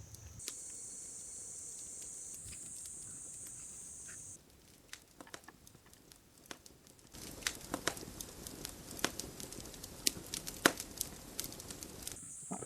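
Steady high-pitched insect drone for about four seconds, then a few soft clicks, then about five seconds of crackling and rustling with many sharp snaps.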